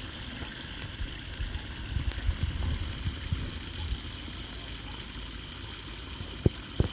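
Floodwater running and trickling into a cleared drain, a steady rushing hiss over a low uneven rumble, with two sharp knocks near the end.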